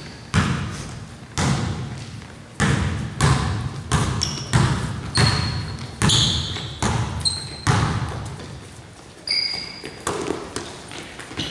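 Basketball bouncing on a gym floor in an irregular dribbling rhythm, each bounce echoing around the hall, with short high sneaker squeaks from players cutting on the court.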